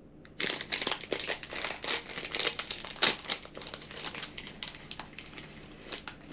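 Clear plastic sweet wrapper crinkling and crackling as hands tear it open and peel it off a karukan manjū, with a sharper crackle about three seconds in.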